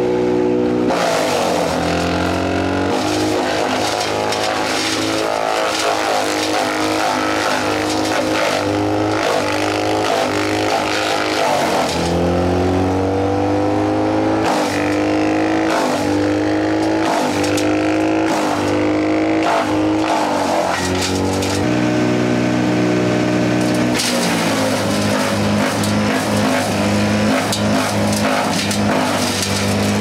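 Skid-steer-mounted hydraulic brush chipper chewing through branches, with cracking and snapping of wood as it is fed through the disc. The skid steer's engine and the chipper's flywheel run hard; several times the pitch drops sharply and then climbs back as the loaded chipping wheel loses speed and recovers, while the inlet feed pauses to let it catch up.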